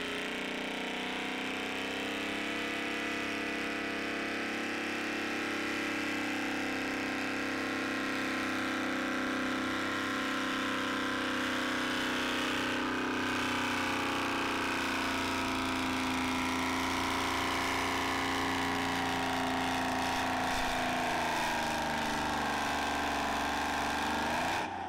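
Pulling tractor's engine running hard at high, steady revs under heavy load. The pitch sags near the end, then briefly rises again.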